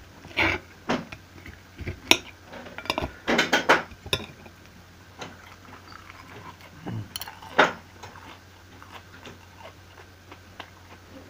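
Metal knife and fork clinking and scraping on a plate while cutting pancake. A run of sharp clinks comes in the first four seconds, two more about seven and a half seconds in, then only scattered light taps.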